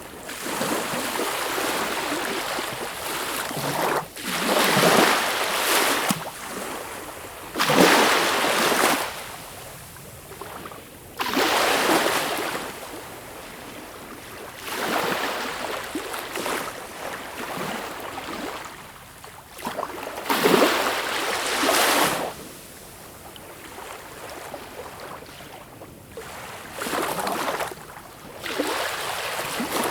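Sea waves washing in: a rushing surf hiss that swells up every few seconds in uneven surges, with a quieter wash between them.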